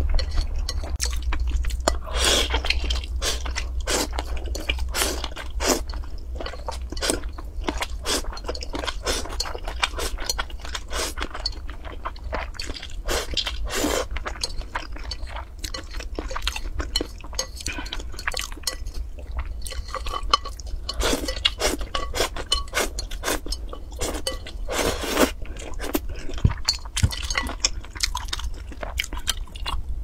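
Close-up chewing and biting of spicy strips, with chopsticks clicking and scraping on a ceramic plate in many short irregular sounds.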